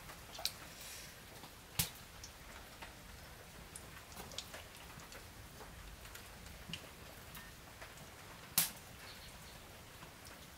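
Wooden chopsticks clicking and tapping against a metal frying pan as spring rolls are turned in hot oil, over a faint sizzle. The sharpest clicks come a little under two seconds in and again about eight and a half seconds in.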